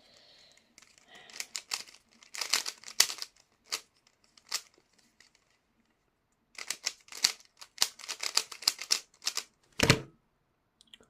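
Plastic Rubik's cube being turned fast during a speed solve: quick runs of clicking layer turns, with a short pause in the middle. The cube turns dry, and the solver feels it needs lubricating. A heavier knock comes near the end.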